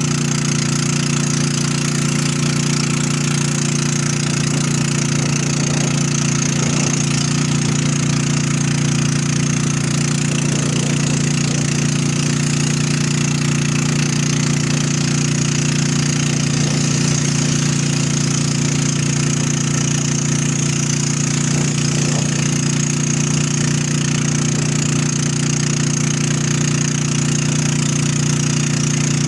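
Motorboat engine running steadily at an even pitch while the boat is under way.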